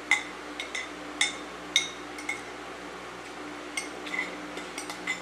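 Spoon clinking against a bowl while eating soup: a dozen or so short, light taps at irregular intervals, with a cluster of them near the end, over a faint steady hum.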